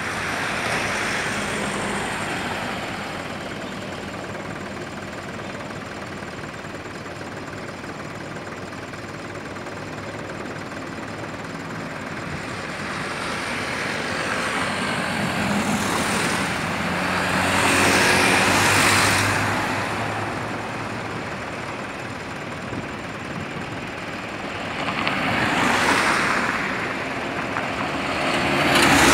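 Road traffic on a highway, vehicles driving past one after another. Each pass swells and fades; the loudest is about eighteen seconds in, with more passes near the end.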